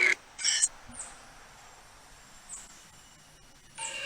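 Quiet outdoor background with a short burst about half a second in and a couple of brief high chirps. Near the end a wavering pitched sound starts and slides downward in pitch.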